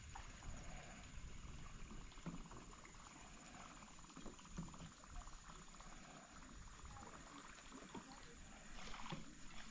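Faint small knocks and light water sounds from a fishing kayak drifting on a river, under a steady high hiss.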